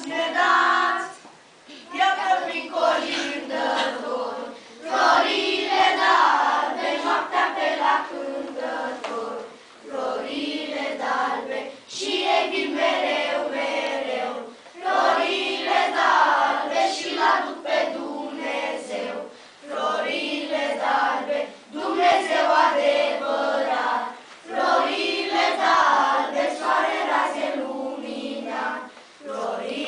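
A group of children singing a Romanian Christmas carol (colindă) together, in sung phrases a few seconds long with brief breaks between them.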